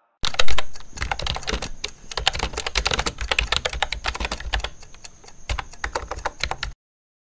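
Fast computer-keyboard typing: a dense run of key clicks that thins briefly about five seconds in and stops abruptly near the end.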